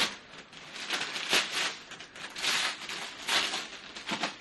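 Wrapping paper crinkling and tearing in several rustling bursts as a rolled-up present is unwrapped by hand.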